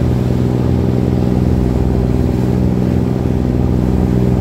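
Fishing boat's engine running steadily while under way, a constant low drone.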